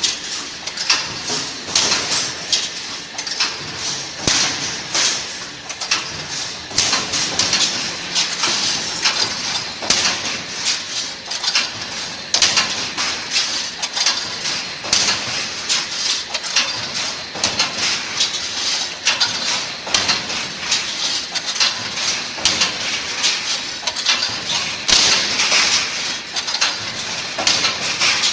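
Automatic wire mesh resistance welding machine running: a dense, continuous clatter of rapid metallic knocks over a steady high hiss.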